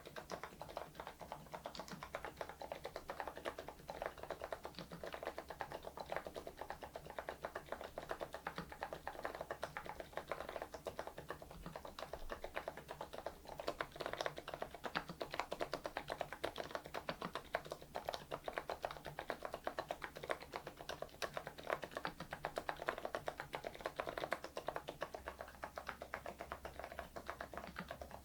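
Fast, continuous typing on a mechanical keyboard fitted with thick PBT Cherry-profile keycaps: a dense, unbroken stream of key clacks.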